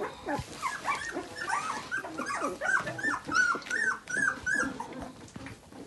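Newborn puppy whimpering and squeaking during bottle-feeding: a rapid series of short rising-and-falling cries, several a second, thinning out near the end.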